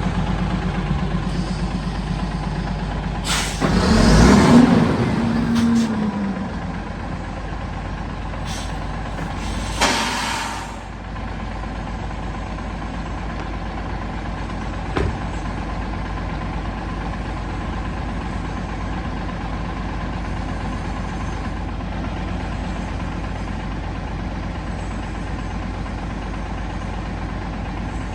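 Heavy dump truck's diesel engine idling steadily, with a loud burst of compressed air hissing out about four seconds in and a shorter hiss about ten seconds in, typical of the air-brake system venting.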